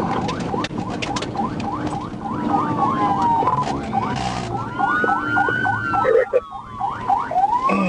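Police car electronic sirens: one cycles in a fast yelp of quick rising sweeps, about four a second, and a slower wail rises and falls over it in the second half. Engine and road rumble run underneath.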